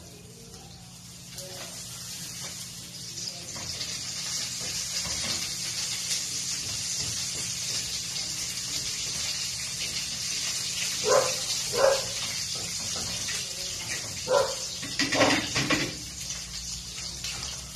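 An egg omelet frying in a non-stick pan on a gas burner, a steady sizzle that swells over the first few seconds, while a wooden spatula folds it over. Four short, louder sharp sounds stand out over the sizzle about two-thirds of the way through.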